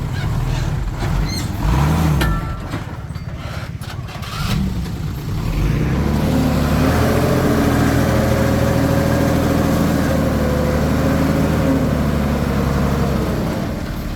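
Komatsu D21P bulldozer's diesel engine running. Its pitch rises and falls in the first two seconds and it drops quieter for a few seconds, then it holds a steady, loud note from about six seconds in.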